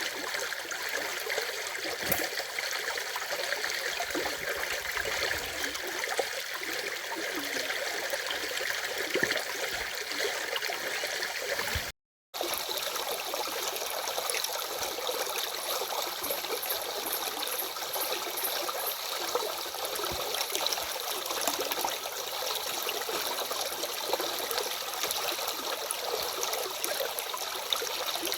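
Stream water flowing steadily, an even rushing and trickling, broken by a split-second drop to silence about twelve seconds in.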